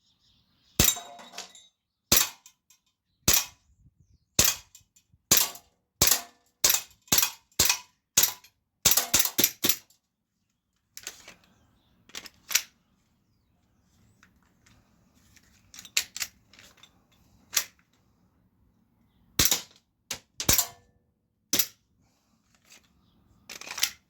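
Glock 17 Gen 4 CO2 BB pistol firing a string of sharp shots, at first about one a second, quickening to two or three a second around eight to nine seconds in, then after a pause with a few fainter pops, single shots a second or two apart.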